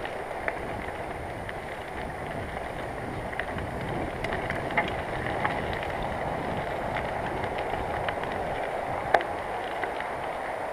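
Bicycle being ridden: steady rolling tyre noise with scattered clicks and rattles, and one sharper knock about nine seconds in.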